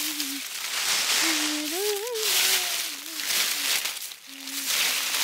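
A high voice making short wordless sounds in gliding phrases, with pauses between them, over a steady hiss.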